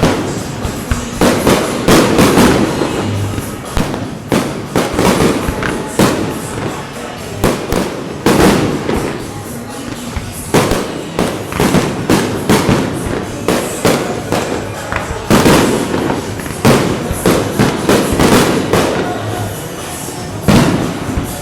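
Stadium fireworks display: aerial shells bursting one after another, loud bangs every half second or so with quick clusters of cracks and echoing booms.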